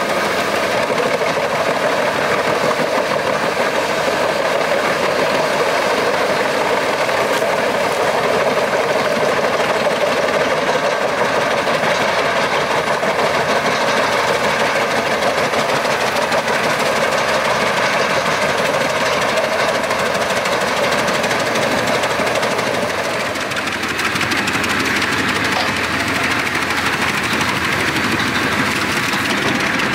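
Albach Diamant 2000 self-propelled wood chipper, its 770 hp six-cylinder engine running hard under load while the chipper cuts large logs into wood chips and blows them out. The sound is steady and loud, easing briefly about three-quarters of the way through before picking up again.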